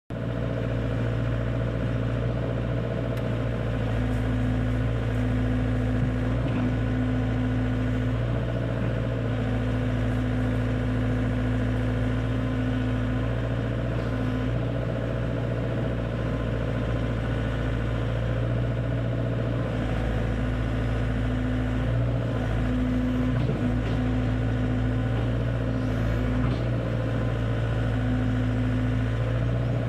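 Diesel engine of an XCMG XE60GA excavator running steadily, with a higher tone above the engine hum that comes and goes several times.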